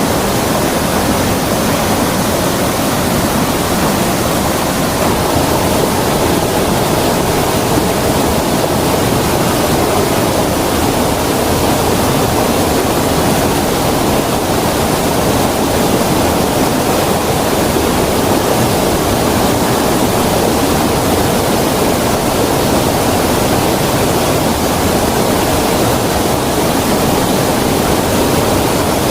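Creek water rushing and splashing in a steady, loud flow.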